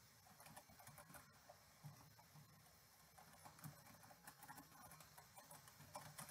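Faint computer keyboard typing: soft, irregular key clicks, barely above near silence.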